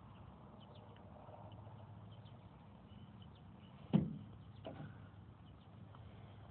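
Quiet outdoor background: a steady low hum with faint scattered bird chirps. A sharp thump comes about four seconds in, and a softer knock follows just under a second later.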